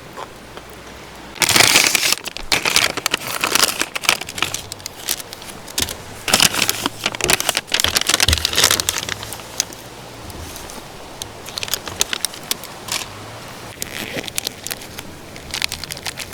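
Irregular crinkling and rustling with many sharp little clicks, heaviest in the first half and thinning out later.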